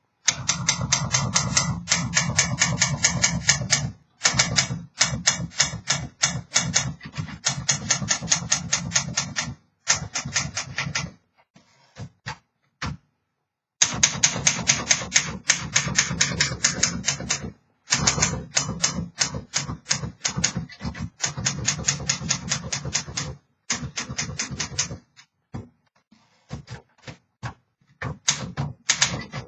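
1936 Underwood Junior manual typewriter being typed on: runs of rapid keystrokes clacking, broken by short pauses a few times.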